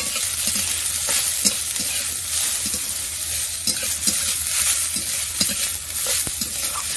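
Parboiled leafy greens sizzling in hot oil in a metal kadai. A metal spatula stirs and turns them, scraping the pan about twice a second.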